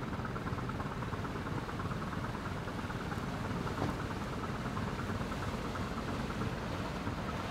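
Steady running of a small cargo ship's diesel engine as the vessel gets under way, with the hiss of propeller wash churning the water.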